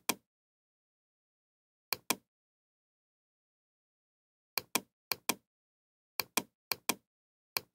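Computer mouse clicks, each a quick double tick of the button going down and coming back up, with dead silence between them. There is one click about two seconds in, then five more in quick succession over the last three seconds.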